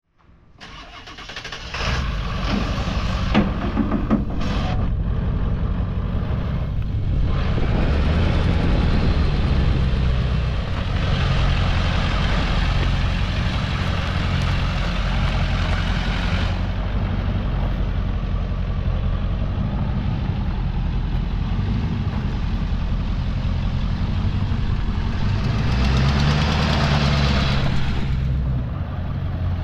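A 1999 Ford F-250 Super Duty pickup's engine idling steadily, with a few sharp clicks about two to four seconds in.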